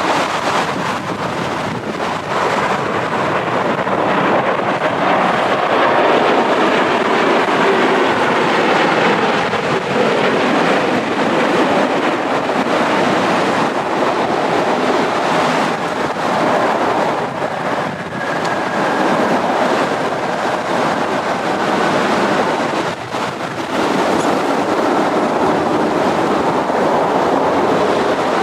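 Jet engine noise from a Boeing 787-10 airliner passing close on its landing, heard as a steady, loud rush with wind buffeting the microphone.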